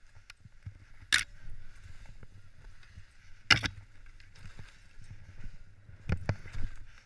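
Skis sliding and turning through snow, with a low wind rumble on the helmet camera's microphone and several sharp knocks as the skis chatter and brush through branches.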